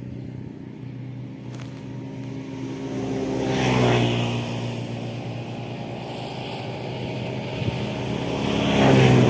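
A motor vehicle's engine running steadily, growing louder twice: about four seconds in and again near the end.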